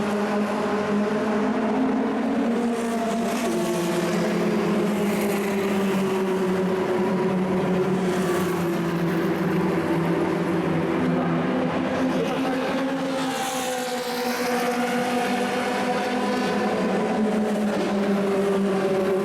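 Racing engines of 1960s cigar-shaped Formula 2 and Formula 3 single-seaters running at speed, several engine notes overlapping, their pitches rising and falling.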